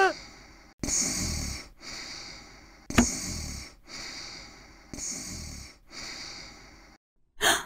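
Snoring sound effect: slow, even breaths in and out, alternating stronger and weaker about once a second, with a sharp click about three seconds in.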